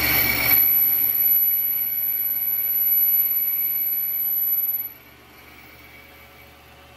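Mini metal lathe taking a heavy facing cut in aluminium: a steady, very high-pitched squeal over the machine's running noise. The squeal cuts off abruptly about five seconds in, leaving only a faint hum.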